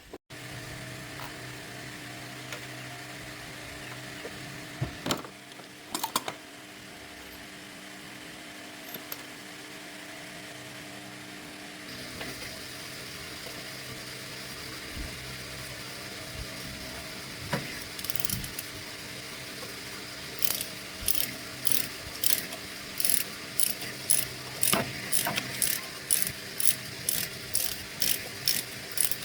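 Hand tools working on a motorbike: scattered sharp metal clicks, then from about two-thirds of the way through a regular run of clicks about two a second, as of a ratchet wrench being worked, over a steady low hum.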